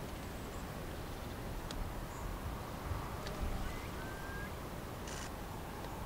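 Outdoor ambience with a steady low wind rumble, over which faint short bird chirps and thin ticks sound now and then, including a brief whistled note about four seconds in. A short rapid ticking burst comes about five seconds in.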